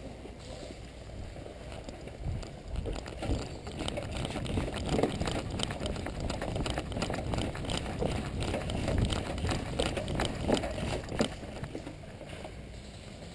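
Footsteps crunching through brush as a player moves off at pace, with irregular crackles and rustles of gear. The steps pick up about two seconds in and ease off near the end.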